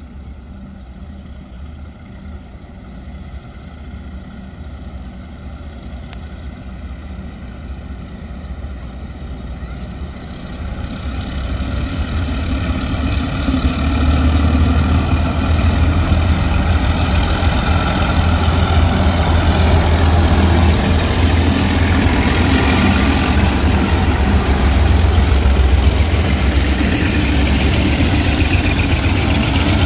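A group of GrainCorp 48 class diesel locomotives, each with a six-cylinder Alco engine, hauling a grain train. Their engines make a low drone that grows louder as they approach and is loud from about halfway through, with rising wheel and rail noise as they pass.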